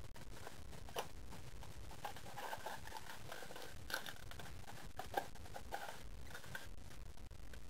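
Cardboard packaging being handled and opened by hand: faint rustling and scraping with a few small clicks, busiest in the middle.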